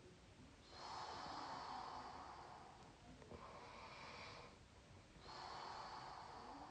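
A sleeping person's faint, squeaky snoring: three long, airy breaths in and out, each with a thin high whistle riding on it.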